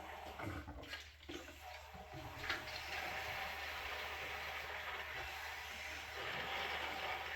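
A household faucet turned on and running steadily into a sink, with a few knocks as it is opened. The faucet is being tested after a water heater refill.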